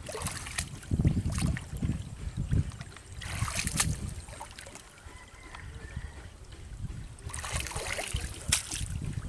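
Hands splashing and sloshing in shallow muddy water, in two stretches about three and seven seconds in, with bursts of low rumble in the first few seconds.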